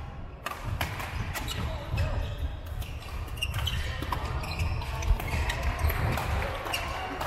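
Badminton rally on a wooden hall floor: scattered sharp racket strikes on shuttlecocks and brief shoe squeaks and footfalls, over the echoing din of play on neighbouring courts.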